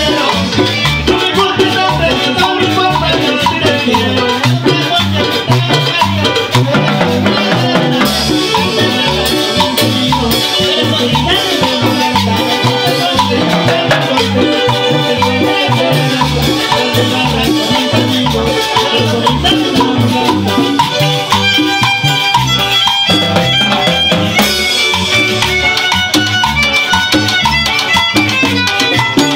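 Live salsa band playing loudly through a PA, with electric bass and congas keeping a steady dance beat.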